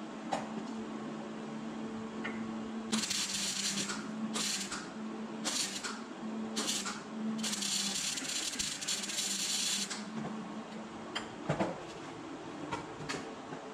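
MIG welder striking the arc on a thin steel muffler casing: four short tack welds about a second apart, then a longer bead lasting a couple of seconds, each a hiss over a steady low hum. A few sharp clicks follow near the end.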